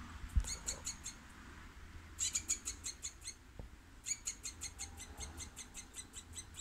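Squirrel calling in quick runs of short, high-pitched chattering notes, about six or seven a second, in three bouts. A thump sounds near the start.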